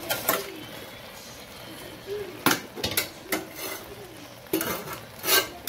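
A utensil clinking and scraping against a metal cooking pot, several separate sharp clatters as food is handled in the pot.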